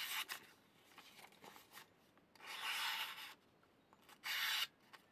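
Fixed-blade knife slicing into a sheet of paper in three separate strokes, each a short hiss, the middle one the longest. The edge has had only a few passes on a coarse stone: it cuts, but not cleanly enough yet.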